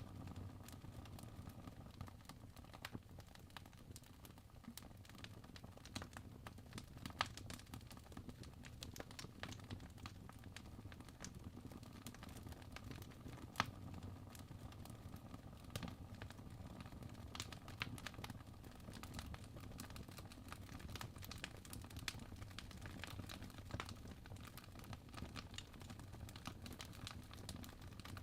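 Fire crackling quietly: irregular small pops and snaps over a low steady rumble, with a few sharper snaps.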